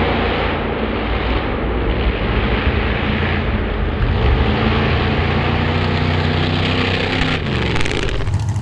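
Two off-road drag-racing vehicles' engines at full throttle on a launch down the strip, their pitch climbing as they pull away. The sound changes abruptly a little before the end.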